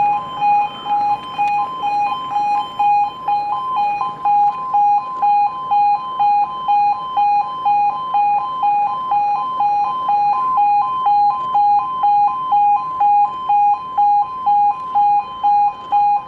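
Automatic full-barrier level crossing's electronic two-tone warning alarm sounding continuously, switching between a lower and a higher tone about twice a second while the barriers are down.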